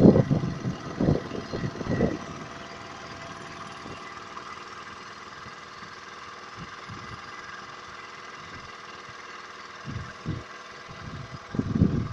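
An engine hums steadily. Loud low thumps hit the microphone in the first two seconds and again near the end.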